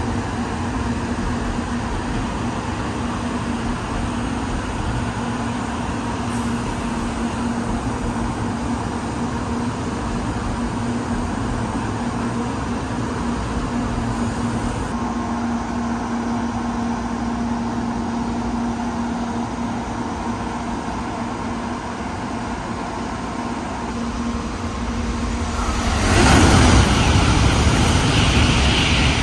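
Steady electrical hum of an N700-series Shinkansen standing at the platform. About 26 seconds in, a sudden loud rushing noise as another Shinkansen comes in on the adjacent track drowns the hum out.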